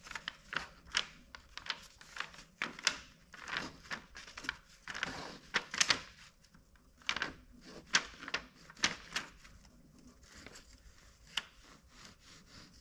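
Irregular light clicks and rubbing from hands working at the bed and nozzle of an Elegoo Neptune 3 Max 3D printer during manual bed levelling, with paper slid under the nozzle to feel the gap. The handling sounds are densest around the middle.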